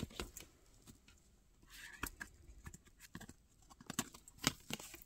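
Oracle cards being handled: card stock sliding and tapping as cards are turned over one at a time, heard as irregular light clicks and taps, a few sharper ones near the end.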